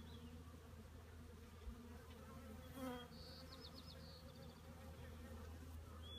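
Honeybees buzzing at the entrance of a Warre hive, a faint steady hum, with a short high trill about halfway through.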